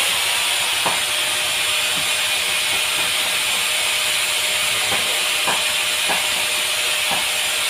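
A steady, even high hiss, with a few faint knocks as wooden crates are pushed across cardboard in a car's cargo area.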